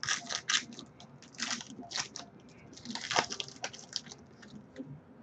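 A stack of glossy football trading cards handled by hand, cards sliding and snapping against each other as they are flipped through: a run of short, crisp swishes, the sharpest about three seconds in.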